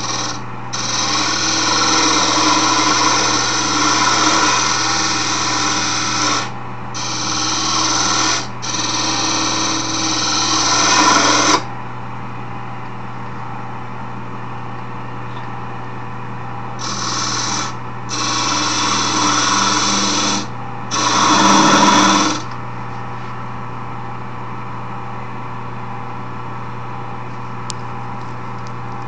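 Wood lathe motor running with a steady hum while a hand-held tool is pressed against the spinning wooden file handle, giving six bursts of scraping cutting noise over the first two-thirds. After that only the lathe's hum is left.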